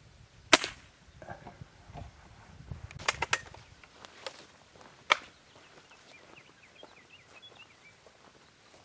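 A single sharp shot from a Seneca Dragonfly MK2 .22 multi-pump air rifle about half a second in, the loudest sound here. A quick cluster of sharp snaps follows about three seconds in and another about five seconds in, footsteps through dry brush, with a bird chirping briefly near the end.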